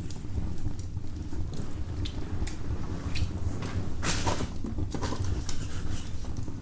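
Wood fire burning in a fireplace: a steady low rumble with scattered irregular crackles and pops, a few louder ones about four seconds in.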